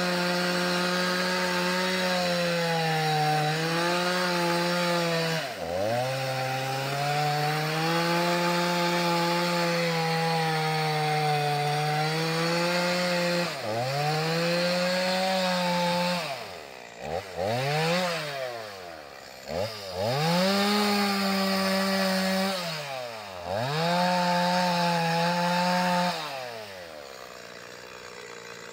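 Chainsaw running at high revs while cutting fallen timber. The engine note drops and climbs back several times as the throttle eases and the saw loads in the cut. About 26 seconds in it falls away to a much quieter sound.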